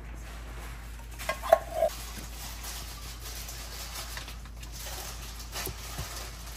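Kitchen handling sounds: a short cluster of knocks and clinks from utensils against a plastic mixing container about one and a half seconds in, and a couple of softer knocks near the end, over a low steady background hiss.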